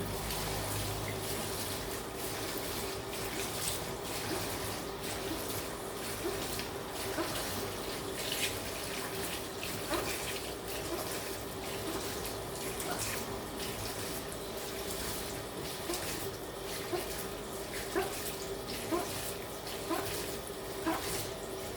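Tap water running into a sink while a teaspoon is washed: a steady rush of water with a steady hum beneath it. Light, sharp knocks come more often toward the end.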